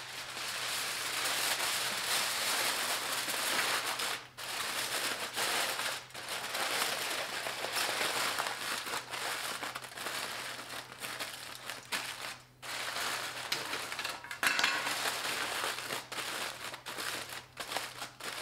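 Aluminium foil crinkling and crumpling as it is folded and pressed tightly around a brisket, with a few short pauses.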